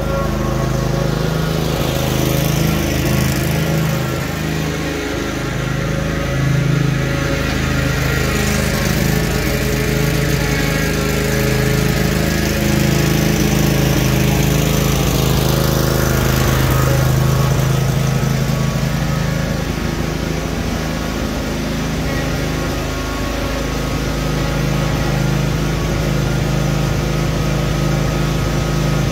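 Cub Cadet RZT-50 zero-turn mower's engine running steadily as the mower is driven. It is a formerly non-starting mower now running after a new carburetor and crankshaft seal.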